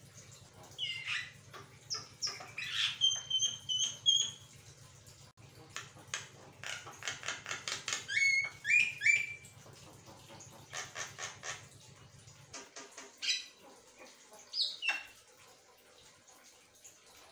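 Javan myna (jalak kebo) singing a varied, unbroken string of squawks, chirps and whistles: fast rattling runs of notes, clear paired whistles, and whistled notes that slide down in pitch.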